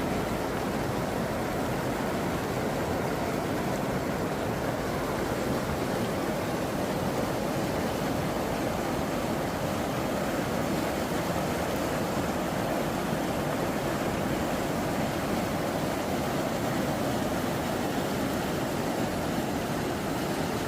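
Floodwater rushing steadily down a desert wadi, a continuous even rush of water with no breaks.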